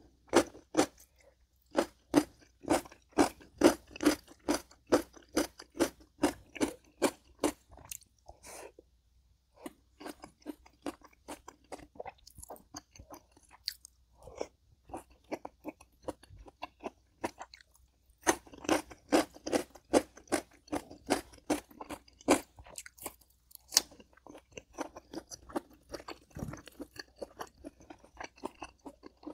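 A person chewing crunchy food close to the microphone, with steady chews about two to three a second in runs broken by short pauses.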